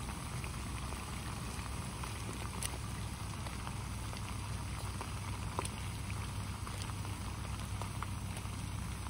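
Olive oil with shrimp, garlic and cherry tomatoes sizzling and bubbling in a frying pan: a steady sizzle with a few small pops, over a low steady hum.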